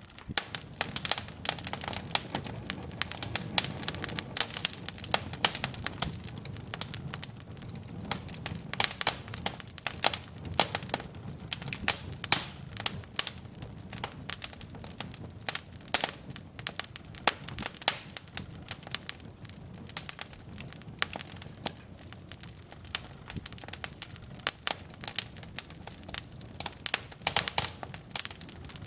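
Wood logs burning in a fireplace: irregular sharp crackles and pops, several a second, over a low steady rush of flame.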